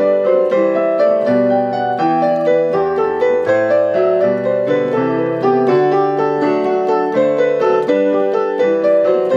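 Piano music playing a flowing run of notes with a steady pulse.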